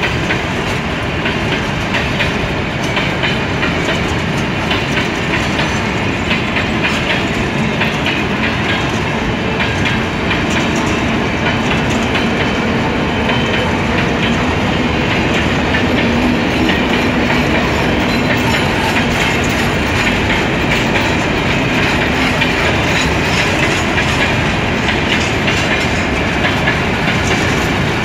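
Freight wagons of a long train rolling past, steel wheels clattering over the rail joints in a steady, unbroken rumble.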